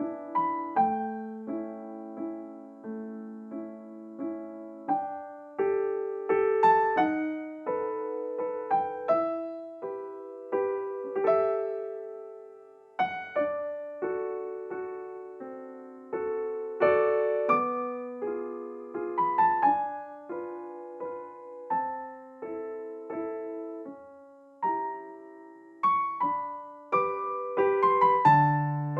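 Background music: solo piano playing a slow melody, one note or chord at a time, each note ringing and dying away.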